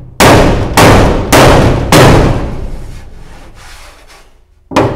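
Heavy hammer blows on the steel underframe of a recovery truck body: four strikes about half a second apart, each ringing briefly, then a fifth near the end. They are knocking out a dent in the frame.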